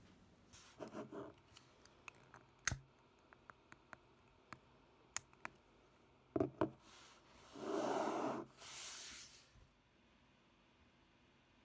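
Small objects handled on a desk: scattered light clicks and taps, two sharper knocks about two-thirds of the way in, then two longer rustling scrapes.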